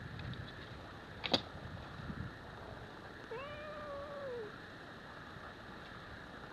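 A cat gives a single meow about a second long, a few seconds in, rising at the start and falling away at the end, during a fight between a Scottish Fold kitten and a Singapura cat. About a second in there is one sharp click, louder than the meow.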